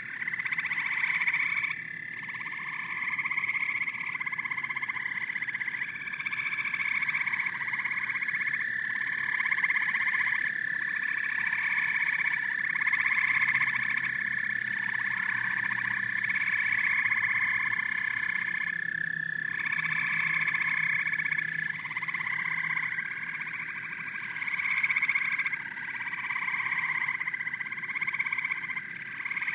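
A chorus of frogs calling, with overlapping calls repeating about once a second over a steady high trill.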